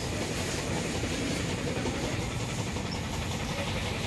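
Steady rumble with a hiss from car-wash machinery running during a vehicle wash.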